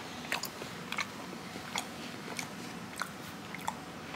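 A person chewing toasted, buttered bread, with about a dozen irregular crunches.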